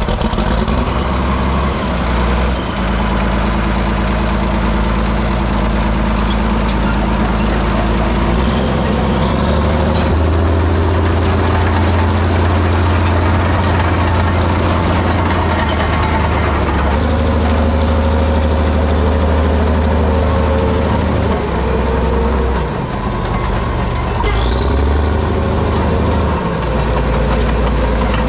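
Caterpillar 977 crawler loader's diesel engine running just after starting, its speed rising and falling several times. Faint high squeals come and go.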